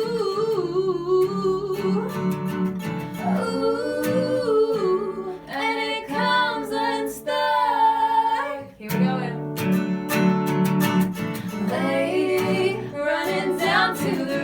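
Two female voices singing wordless, sliding 'ooh' vocal lines over a strummed acoustic guitar, in a live acoustic pop performance.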